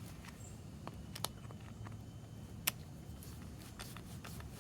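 Faint scattered clicks of small parts being worked as the cord clamp screws on a replacement power plug are tightened, the sharpest click nearly three seconds in, over a low steady hum.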